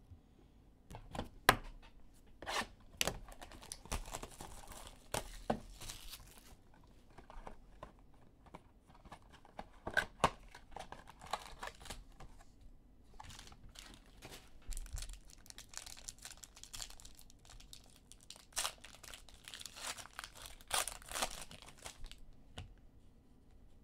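Panini Optic baseball card box and packs being opened by hand: wrappers tearing and crinkling, with irregular sharp snaps and short rustles as they are pulled apart.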